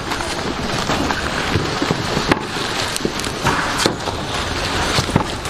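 Packing noises: steady crackling and rustling with many scattered sharp clicks and knocks, from frozen seafood packs and packing materials being handled.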